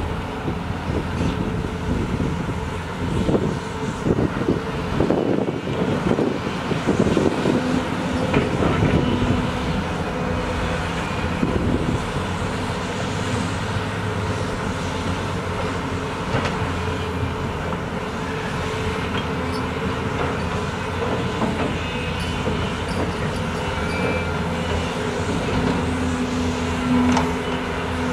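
Heavy diesel machinery at work: a large hydraulic excavator and dump truck running, with a busy stretch of clanking and rattling from the bucket and dirt in the first ten seconds or so. A steady engine note grows stronger near the end.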